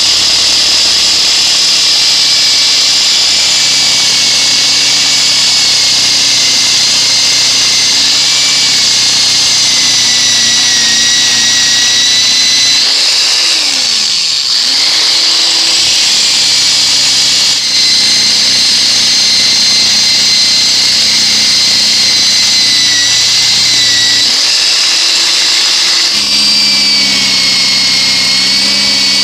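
Electric drill spinning a wire brush against the rusty steel head of a mattock, scouring off rust with a steady whine and scrubbing. About halfway through, the motor's pitch dips and comes back up.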